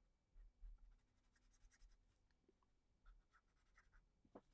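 Faint scratching of a black felt-tip marker on paper: short strokes, colouring in a small area.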